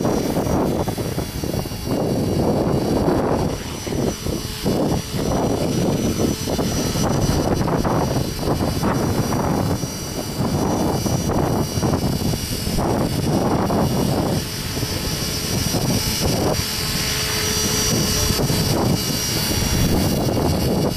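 Gusty wind buffeting the microphone, over the steady high-pitched whine of a Belt CP electric radio-controlled helicopter in flight.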